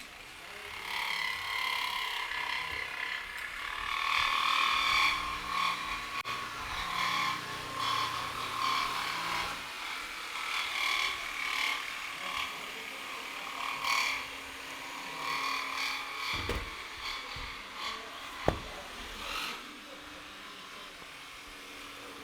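D-handle jigsaws with down-cut blades cutting laminate-faced board, several saws running at once. Their whine rises and falls as they load up in the cut, and a sharp knock comes about eighteen seconds in. The down-cut blade's reversed teeth cut on the down stroke to keep the top laminate from chipping.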